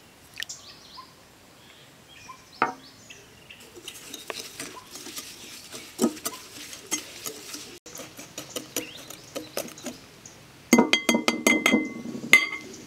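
Wire balloon whisk beating eggs and sugar in a glass bowl, its wires clinking rapidly against the glass. The clinking gets louder and faster near the end.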